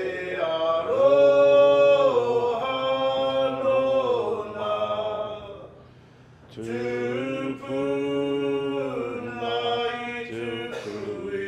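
Unaccompanied male chanting: long held notes that fall away at their ends, sung in two phrases with a short break about halfway through.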